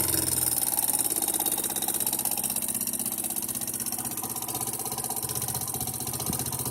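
Yamaha Serow 225's air-cooled single-cylinder four-stroke engine dropping back from a rev right at the start, then idling steadily with rapid, even firing pulses. This is the replacement engine whose abnormal noise is being shown.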